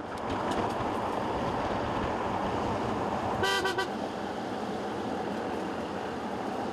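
Steady road and wind noise of travel along a country road, with one short horn beep about three and a half seconds in.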